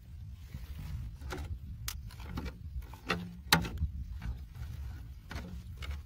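Clear plastic jar knocking and clicking as watermelon chunks are set into it by hand: a handful of sharp knocks, the loudest about three and a half seconds in, over a low rumble.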